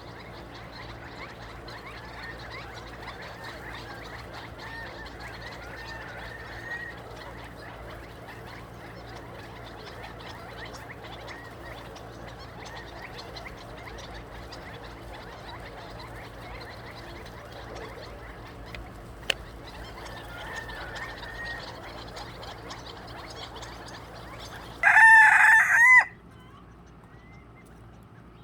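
Chickens clucking softly in the background, then a rooster crows once, loudly, for about a second near the end.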